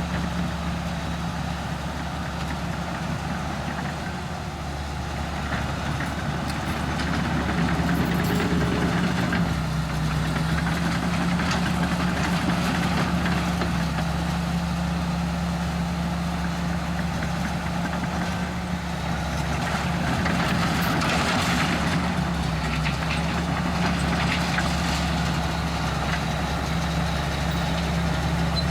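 Komatsu D61EX bulldozer's diesel engine running steadily while working, with a harsher, noisier stretch about two-thirds of the way in.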